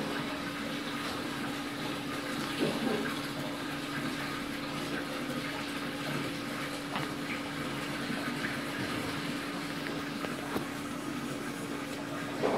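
Live-fish tank's water pump running: a steady hum over an even rush of moving water, with a few faint knocks.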